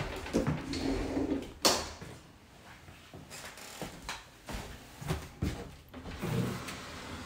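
White bifold closet door being handled and pulled open, giving a series of knocks and clicks. The loudest, a sharp knock, comes about a second and a half in, and smaller clicks follow later.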